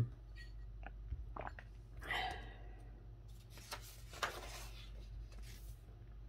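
Glossy magazine page being turned by hand, the paper rustling and sliding from about three seconds in until nearly the end. Before it come a few soft clicks and a faint short mouth sound.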